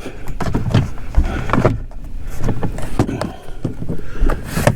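Irregular plastic knocks and clicks from a car door trim panel being handled and pressed onto the door to seat its snap-in clips, over low handling rumble.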